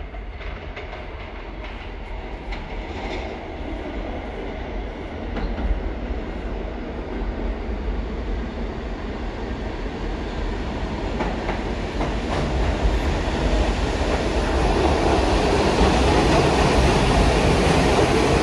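New York City subway train approaching along the tunnel and pulling into the station, its rumble and the clatter of wheels over rail joints growing steadily louder as it arrives.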